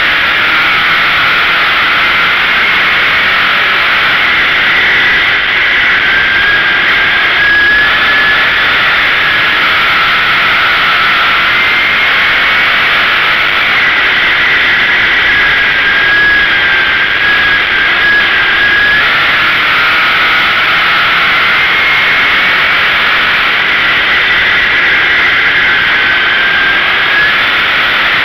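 Dirt-track sportsman race car's engine running hard under the in-car microphone, loud and continuous, its pitch rising and falling in slow repeated swells as the car laps the oval.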